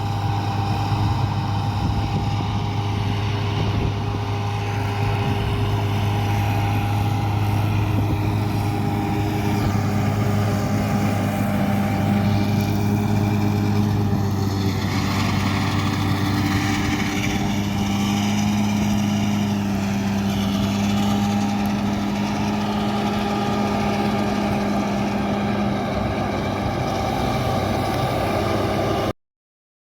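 Diesel engine of heavy farm machinery running steadily under load, a constant low drone with steady overtones that cuts off suddenly near the end.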